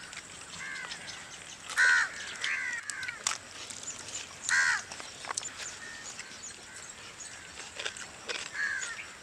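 Crows cawing outdoors: a few short calls spaced a second or more apart, the loudest about two seconds in and again about halfway through, with faint clicks between.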